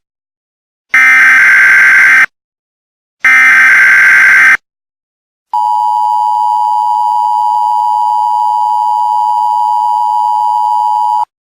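Emergency Alert System header: two loud blasts of digital data tones about a second and a half long each, then the EAS two-tone attention signal (853 and 960 Hz) held steady for nearly six seconds before cutting off abruptly. It is the electronic signal that opens an emergency alert broadcast.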